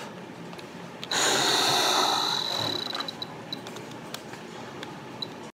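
A forceful exhaled breath blown into a handheld spirometer (lung-age meter) for about a second and a half, with a steady high whine through the blow. A few short high beeps from the meter follow.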